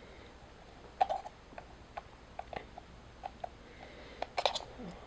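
A series of small clicks and light taps from a Phillips screwdriver and tiny screws being handled against the MacBook Pro's aluminum case. There is one sharp click about a second in and a louder clatter of clicks near the end.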